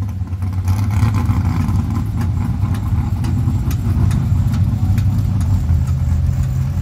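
Low, steady engine rumble of classic cars rolling slowly past at close range: a 1957 Chevrolet two-door station wagon drives by and pulls away while an El Camino moves up behind it.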